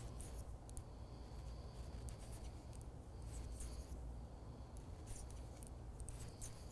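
Faint clicking and scraping of circular knitting needles as stitches are knit, in short irregular ticks over a low steady hum.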